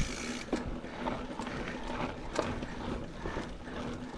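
Mountain bike's rear freehub ratcheting with a steady buzzing click while the rider coasts, over the rattle of tyres rolling across rock.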